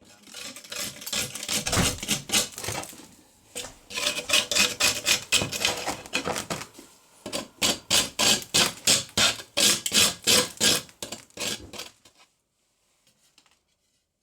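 Rapid back-and-forth scraping or rubbing strokes by hand, about four a second, stopping about twelve seconds in.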